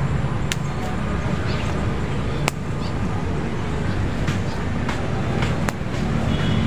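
Steady low rumble of wind buffeting a phone microphone, with a few sharp clicks as moringa branches are pulled and handled.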